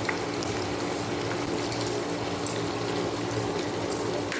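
Sliced onions deep-frying in hot oil in a kadai: a steady sizzle with scattered faint crackles.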